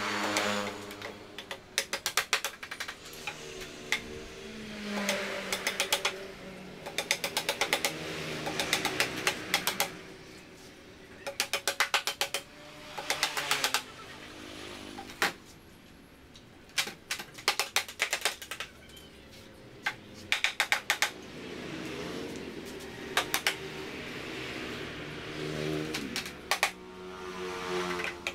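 Repeated bursts of rapid mechanical clicking, about a second each and a dozen in all, from a tool being worked on the bamboo frame. Between them a machine-like tone rises and falls in pitch.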